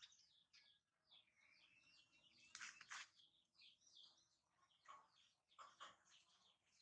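Faint small-bird chirping in short, repeated calls, with a few soft clicks and rustles scattered through.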